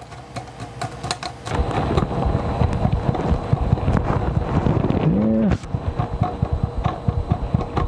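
Screwdriver work on a motherboard mounted on an open-air test bench frame: a dense run of small clicks and scraping over a low rumble of handling. The rumble comes in about a second and a half in.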